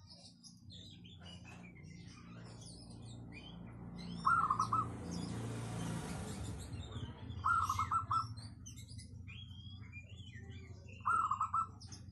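Zebra dove (perkutut) cooing three times, about three to four seconds apart, each coo a quick run of clipped notes. Small birds twitter faintly in the background over a steady low hum.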